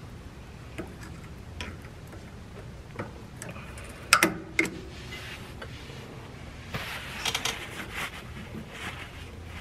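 Small metal clicks and taps of needle-nose pliers working at the castle nut and cotter pin on a brake drum hub, with a sharp double click about four seconds in. Near the end, the rustle and rub of a cloth rag wiping grease off the hub.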